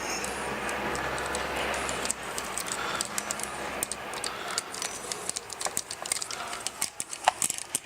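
Loose saw chain of an XtremepowerUS 45cc chainsaw being handled and fitted onto the guide bar: metal links rattling and clicking. The clicks start about two seconds in and come thicker toward the end.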